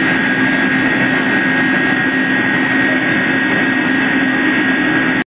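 Combined rice milling unit running while milling rice: a loud, steady mechanical drone with a low hum and a high, even whine. It cuts off suddenly near the end.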